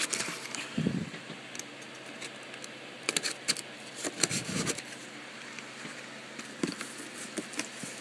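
Cardboard shipping box being opened one-handed: scratching and tearing at the packing tape along the seam, with sharp clicks about three seconds in and a few dull bumps of the box being handled.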